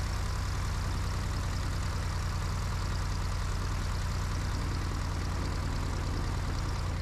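Cessna 172B's piston engine and propeller running at low taxi power, a steady drone heard inside the cabin. A steady hiss of radio noise runs under it, from a radio squelch that is not set right.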